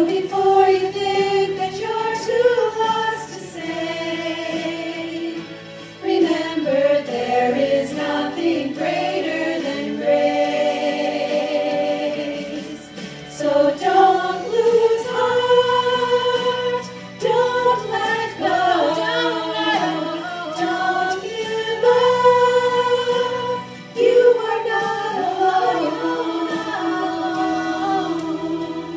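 A small group of women singing a gospel song in harmony through microphones, in phrases a few seconds long with short breaths between them.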